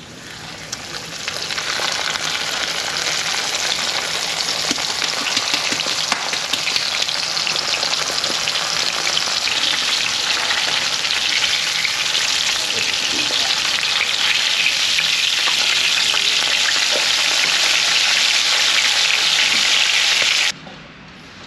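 Cornstarch-dredged sand dab frying in 350–375 °F oil in a cast-iron skillet: a dense, crackling sizzle that swells over the first second or two as the fish goes into the oil, then runs on loud and steady until it cuts off abruptly near the end.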